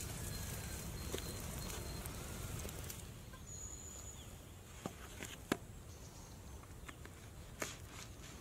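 Quiet outdoor ambience: a steady low rumble with scattered light crackles for the first few seconds, then quieter, with a short high bird whistle and a few sharp taps.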